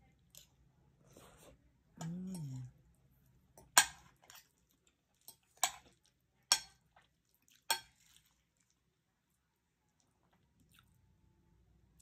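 A person eating chicken and rice close to the microphone: a short hummed 'mmm' about two seconds in, then four sharp clicking smacks over the next four seconds, with faint chewing between.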